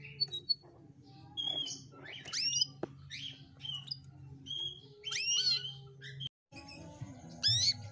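Canary calling in short separate chirps and rising whistled sweeps, a burst every second or so rather than a continuous rolled song, over a steady low hum; the audio cuts out briefly about six seconds in. The calls are presented as a hen canary's, played to prompt silent male canaries to sing.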